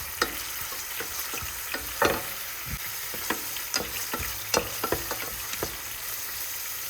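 Fish frying in hot oil in a pan: a steady sizzle with irregular crackles and pops spattering throughout.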